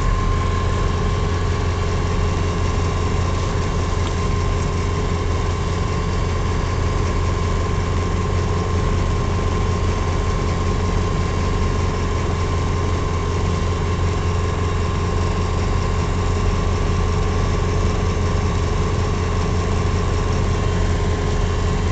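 Diamond DV20 Katana's Rotax 912 flat-four engine and propeller running at a steady speed, heard inside the cockpit.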